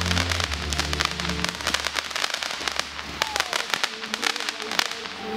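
Ground firework battery firing a rapid stream of crackling pops that thins out after about two seconds, with a short falling whistle a little past three seconds in. Background music with low sustained notes plays under it for the first second and a half.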